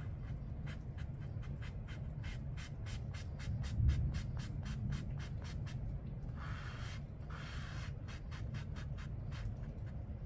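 Watercolor brush stroking and dabbing on paper: a quick run of short, scratchy strokes about four a second, with two longer brushing sweeps past the middle. A low thump sounds about four seconds in, over a steady low hum.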